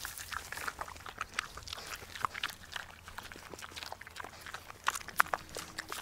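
An animal making a run of short, irregular clicking noises and brief calls.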